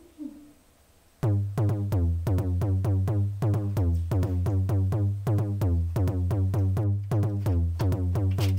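Electronic dance music with a drum-machine beat and a deep, heavy bass, starting suddenly about a second in.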